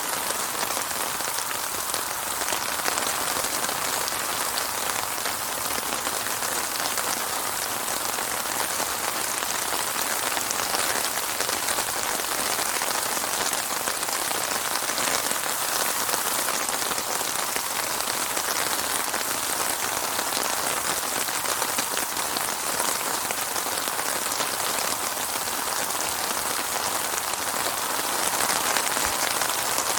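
Steady rain falling, a dense, even hiss of drops with no thunder.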